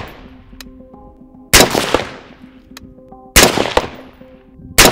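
Budget PSA AR-15 rifle firing slow, single aimed shots, about one every two seconds. There are three sharp reports, the last near the end, each followed by a short echoing tail.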